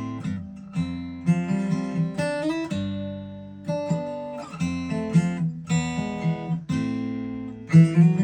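Taylor 214 DLx acoustic guitar played solo: a run of chords and single notes, some strummed and some plucked, each ringing out before the next.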